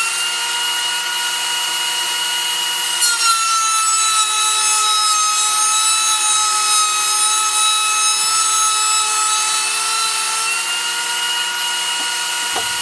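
Benchtop thickness planer running and shaving 2x3 pine boards: a steady motor whine over loud cutting hiss. Its pitch dips a little about three seconds in and rises again near the end.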